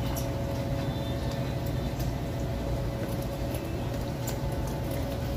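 Steady low rumble and hum of a supermarket aisle, with a thin steady tone and a few light clicks.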